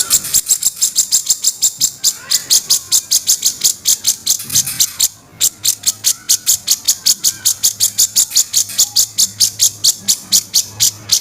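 Cucak jenggot (grey-cheeked bulbul) giving its harsh 'kasaran' call: a fast, even run of short, scratchy, high notes, about five a second. The run breaks off briefly about five seconds in, then carries on.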